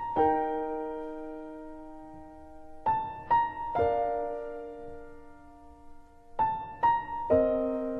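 Background piano music with a gentle phrase: two short notes, then a held chord that slowly dies away. The phrase comes three times, about every three and a half seconds.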